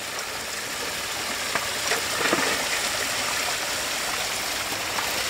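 Creek water spilling over a small stone dam, a steady rushing trickle, with a few small splashes in the middle.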